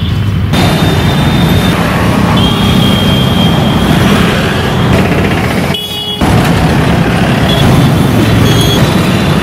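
Loud, steady rumble of road traffic with heavy vehicles. It drops out briefly about six seconds in, then resumes.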